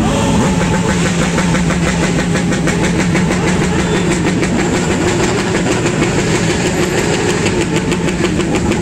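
Motorcycle engines running loudly, one with a fast, even pulse that begins about a second in and fades near the end.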